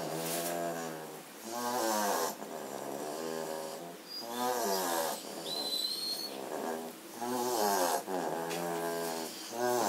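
German Shorthaired Pointer puppy snoring loudly in deep sleep. The pitched snore comes on each breath in and out, about once a second, and the pitch slides on some breaths.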